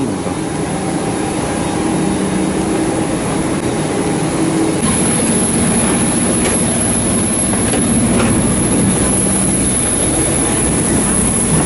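Steady jet aircraft noise, a rush with a low hum beneath it, that grows louder and brighter about five seconds in.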